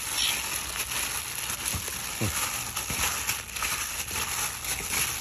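Plastic bag worn as a glove crinkling and rustling as a hand kneads raw lamb ribs in a herb marinade, with wet squishing of the meat and small clicks against the steel bowl.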